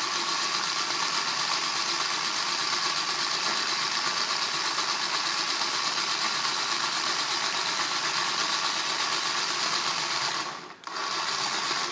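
Small battery-powered motor of a Crayola Creations Thread Wrapper toy whirring steadily as it wraps thread. It stops briefly near the end and starts again.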